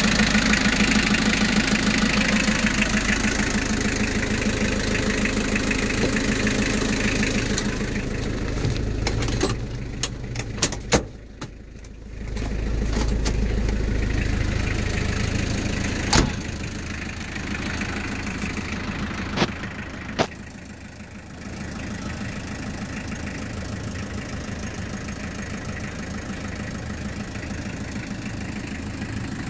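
Nissan LD20 2.0-litre naturally aspirated diesel engine running steadily at idle. A few sharp clicks or knocks land around the middle, and the engine sound drops in level twice, briefly.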